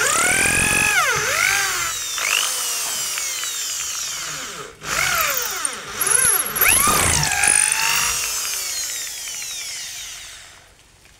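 Corded electric drill boring into a weathered hardwood plank. Its motor whine rises and falls in pitch as the trigger is eased and squeezed, with a brief stop about five seconds in. The drill winds down and stops near the end.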